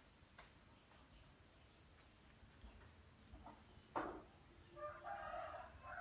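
Near silence broken by faint bird calls: a few faint high chirps, then a longer call about five seconds in.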